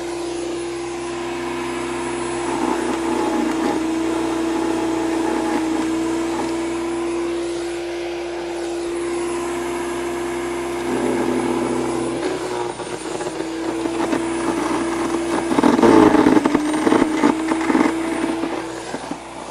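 Powersmart PS10 electric chipper-shredder running with a steady motor whine while it grinds up branches fed into it. Louder crunching comes in patches, the loudest about 16 seconds in, where the whine wavers and dips briefly under the load.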